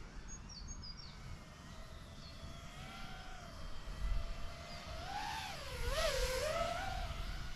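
Brushless motors of a 3-inch FPV quadcopter (BrotherHobby 1504.5 3950kv on 4S) whining in flight, the pitch rising and falling with the throttle. It gets louder about five seconds in, with quick wobbles in pitch as the quad manoeuvres.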